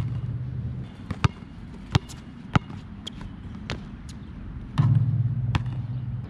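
A Nike Jordan Hyper Grip basketball bouncing on hard court surface, several separate bounces. Twice a knock is followed by a loud low hum lasting over a second: once carried in at the start, and again about five seconds in.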